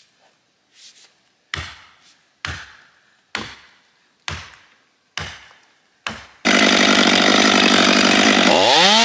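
Six heavy hammer blows on a felling wedge driven into a jarrah log, about a second apart, each ringing briefly. Then a Stihl MS 500i fuel-injected two-stroke chainsaw cuts in at full throttle, loud and steady, sawing the big jarrah log; near the end its engine revs up and holds a steady high pitch.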